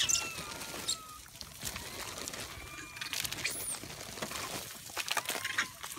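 A troop of macaques scrabbling and feeding on gravel, with scattered crunching and rustling clicks and a few thin, high calls that glide slowly in pitch.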